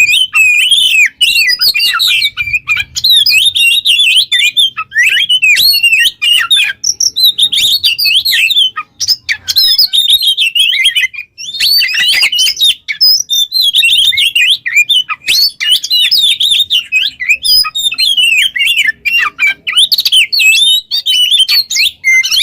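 An Oriental magpie-robin (kacer) in full song: a loud, fast, nearly unbroken run of varied high whistled and warbling notes, with a few brief pauses.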